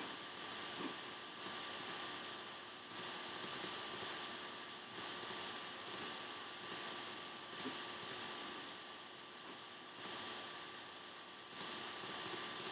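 Computer mouse buttons clicking at irregular intervals, often two or three clicks in quick succession, over a faint steady hiss of room and microphone noise.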